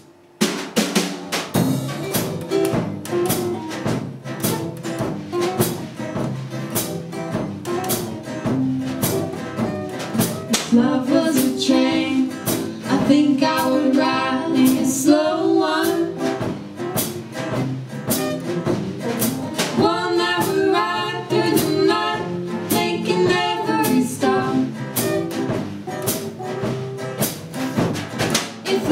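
Small band playing live: acoustic guitars, acoustic bass guitar and a drum kit keeping a steady beat. After an instrumental opening, a woman's voice comes in singing about ten seconds in.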